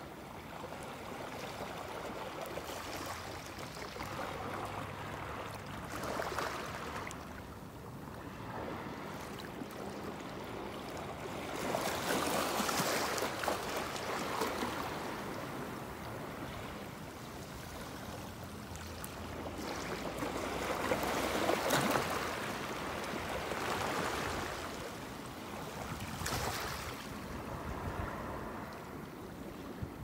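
Small sea waves washing up over a concrete seawall's edge and draining back: a steady hiss of moving water that swells into a louder wash every several seconds.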